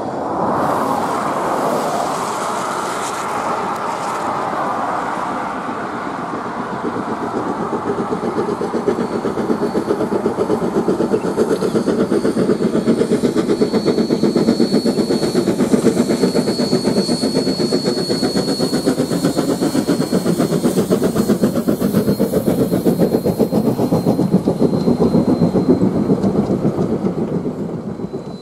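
NZR A class steam locomotive A 428 working a passenger train past, its exhaust beating rapidly under load. The beats grow louder as it draws near and fall away as it goes by near the end.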